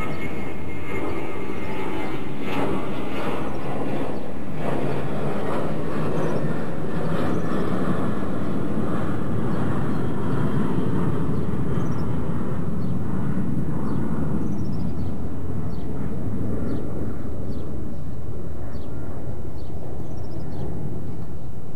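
A steady low rumble with a slow swell around the middle, and short high chirps of birds repeating in the second half.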